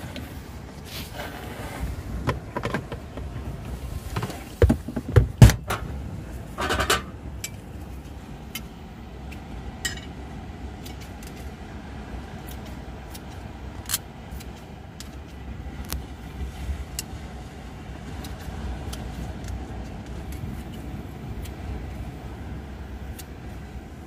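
Pork and garlic cooking on a small griddle while metal tongs and kitchen scissors click against it as the meat is cut, over a steady low rumble. A few sharp knocks about five seconds in are the loudest sounds.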